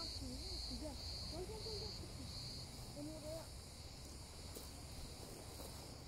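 Insect chirping in a steady high pulse, about two chirps a second, that stops about two and a half seconds in; faint voices murmur underneath.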